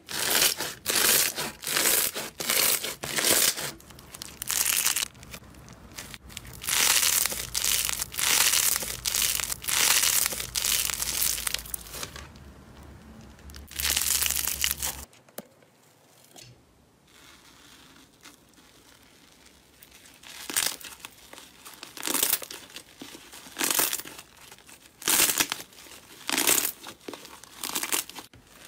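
Slime squeezed and kneaded by hand, crackling and popping in quick, irregular bursts. The bursts are dense at first, then after a short pause about halfway come as sparser separate pops.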